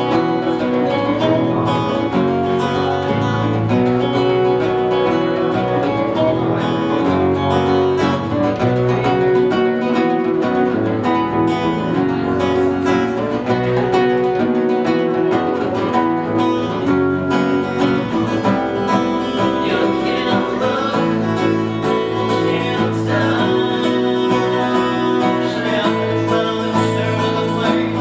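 Small unplugged band playing a song: three acoustic guitars strummed and picked over a bass guitar line, at a steady rhythm.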